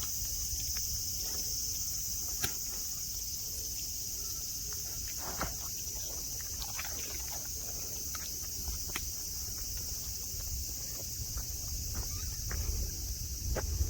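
Cicadas droning in a steady, high, even chorus, over a low rumble and a few scattered soft clicks.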